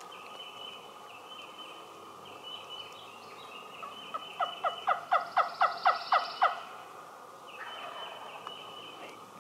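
Wild turkey gobbler gobbling once about four seconds in: a fast rattling run of about ten notes lasting some two and a half seconds.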